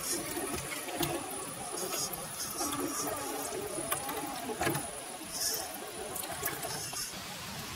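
Reely Free Men RC scale crawler's electric drivetrain whining with a wavering pitch as it drives through mud, with wet tyre sounds and a few sharp clicks. The sound stops about seven seconds in.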